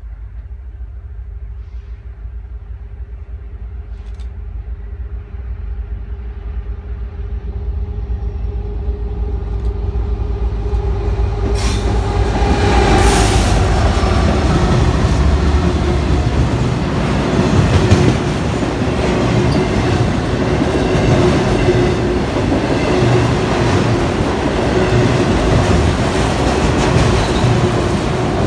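Canadian National freight train approaching fast and growing steadily louder until its locomotive passes about twelve seconds in, then a long string of autorack cars rolling by with steady wheel clatter. A steady hum runs under it throughout.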